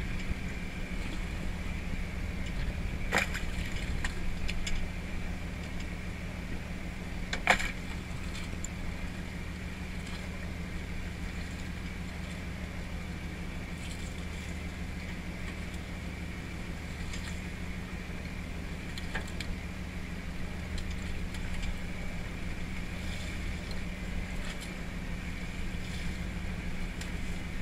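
Fishing boat's engine running steadily, with a thin, high steady whine over the low hum. A few sharp clacks from crabs being handled on deck; the loudest comes about seven and a half seconds in.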